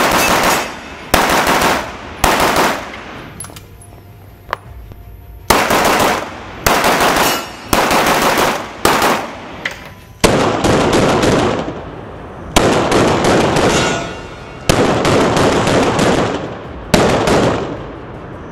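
Walther Q5 Match 9mm pistol fired about ten times, one shot every one to two seconds, each shot ringing on in the indoor range.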